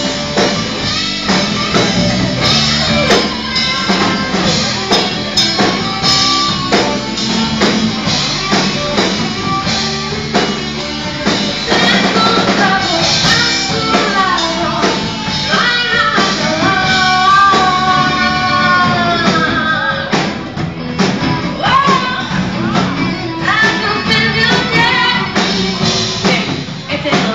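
Live rock band playing: a woman singing lead over electric guitar, bass guitar and drum kit. Her sung lines stand out most in the second half.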